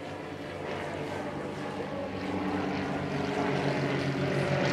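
Formation of three single-engine propeller planes flying over, their engines droning steadily and growing louder as they approach.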